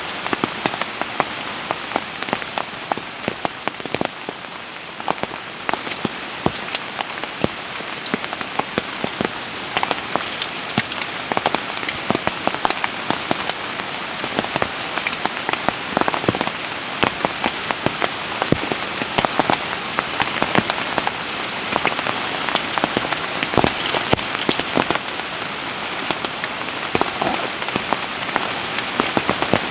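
Steady rain falling, with many sharp, irregular drop hits close by over the continuous hiss.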